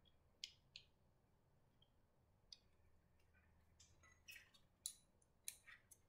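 Faint, scattered metallic clicks and ticks of a motorcycle chain riveting tool as its riveting screw is fitted and handled, with more of them in the second half.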